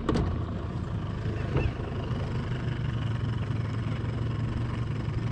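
Boat's outboard motor idling with a steady low hum.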